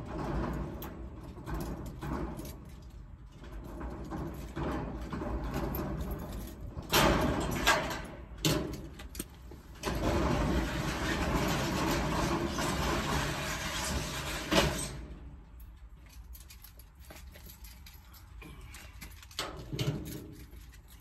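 Corrugated metal roll-up storage-unit door being opened: a couple of short metal clanks, then about five seconds of loud rattling as the door rolls up. The car's engine idles steadily underneath, heard from inside the car's cabin.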